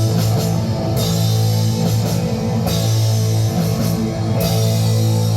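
Live band starting a rock song just after a count-in: guitar over a held low bass note, with drums and cymbals.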